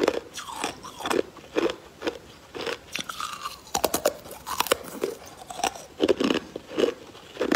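Close-up crunching and chewing of ice, bite after bite about twice a second. A run of sharp clicks comes near the middle, as ice is bitten off a wooden popsicle stick.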